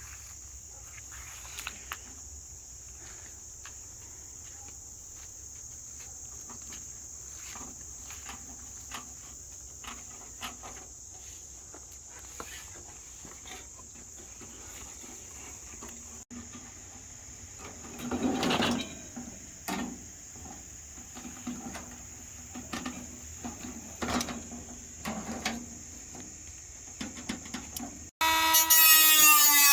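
A steady, high-pitched chorus of insects, with scattered knocks and taps throughout. Near the end a power drill starts suddenly and runs loudly.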